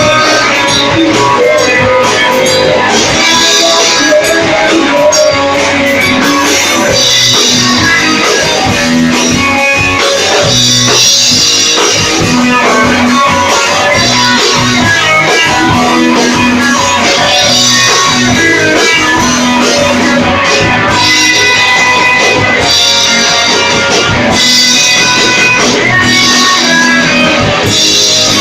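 A rock band playing live and loud: guitars over a drum kit.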